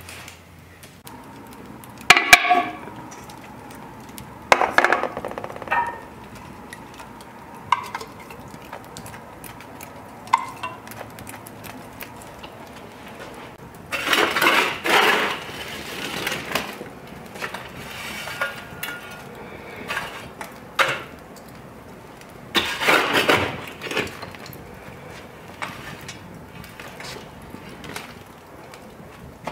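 Iron fire shovel and tongs clinking and scraping against cast-iron Dutch ovens and the brick hearth as hot coals are shoveled onto the oven lids. There are several sharp metallic clinks with a short ring in the first ten seconds, then two longer stretches of scraping and coals tumbling, about halfway through and again later.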